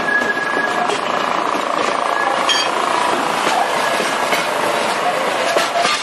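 Old wooden railway passenger cars and a slatted cattle car rolling past on the track, their wheels clattering and knocking over the rails. A thin high wheel squeal sounds in the first second.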